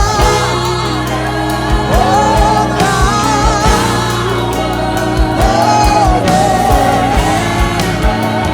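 Live worship band playing with several voices singing, over sustained chords and a steady low beat.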